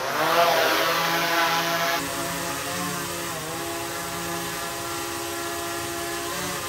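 DJI Mavic 3 Pro drone's propellers spinning up and then running steadily with a humming, whining tone that dips briefly in pitch twice as the motors adjust. About two seconds in, the sound switches from a camera's shotgun microphone to a laptop's built-in microphone.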